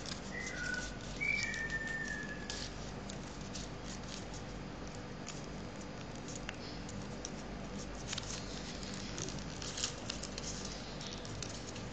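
A sheet of origami paper being folded and creased by hand, rustling and crackling in short, scattered bursts, with a few short high chirps in the first few seconds.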